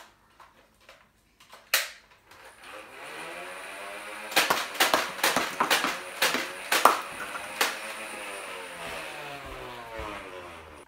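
Nerf blaster firing a quick string of foam darts, with sharp clicks and light knocks of darts hitting cardboard tubes and the floor, from about four to almost eight seconds in. A single click comes near two seconds in, and a steady hum runs underneath.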